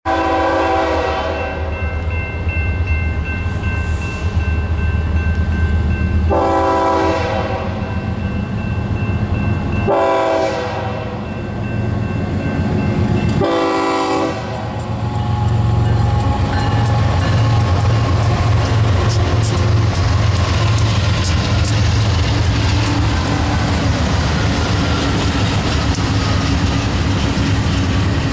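Air horn of an approaching diesel freight train sounding four multi-note blasts in the first half, the first one the longest, over the low rumble of its GE diesel-electric locomotives. Then the locomotives pass, and the double-stack container cars roll by with a steady clatter of wheels over the rail joints.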